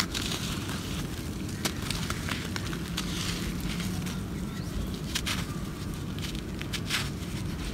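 Dry, crumbly dirt clods crushed and broken apart in bare hands, with gritty crunching and irregular crackles as loose dust and grit trickle down. A steady low rumble runs underneath.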